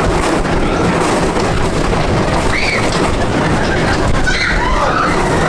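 Big Thunder Mountain Railroad mine-train roller coaster running along its track: a loud, steady rumble, with riders' shouts rising and falling about two and a half seconds in and again near the end.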